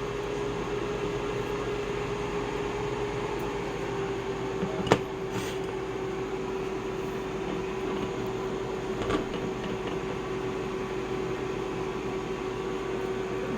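Steady hum of a running household appliance or fan, with one steady tone in it. A sharp knock comes about five seconds in and a lighter one near nine seconds.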